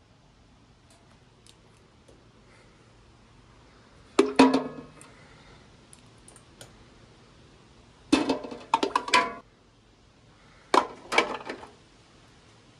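Glass canning jars set one after another into a pressure cooker, clinking and knocking against the pot and each other in three clusters: about four seconds in, around eight to nine seconds, and near eleven seconds.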